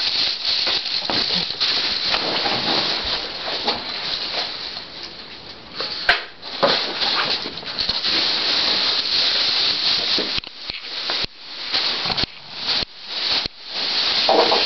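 Continuous rustling and scuffling, broken by several short pauses in the second half, as a Shih Tzu puppy plays with a tennis ball on carpet.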